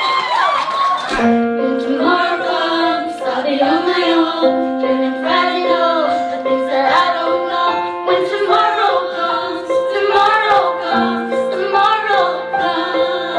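A group of women singing a song together, one into a handheld microphone, over backing music with long held notes. The song starts about a second in.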